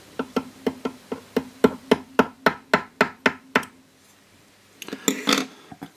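Small hammer tapping a short length of steel pinion wire into a hole drilled in the end of a brass clock wheel's arbor, held in a lathe, to fit a new pivot: about fourteen quick, light taps, roughly four a second, stopping after three and a half seconds. A brief rustle follows near the end.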